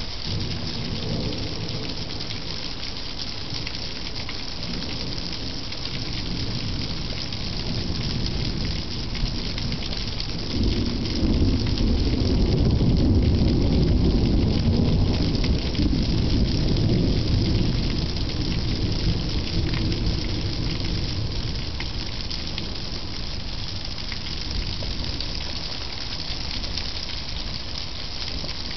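Steady rain hissing, with a loud rumble of thunder from the lightning strike that builds about ten seconds in, holds for several seconds and dies away.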